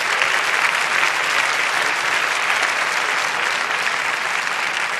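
Theatre audience applauding, a steady dense clapping that greets a singer walking on stage.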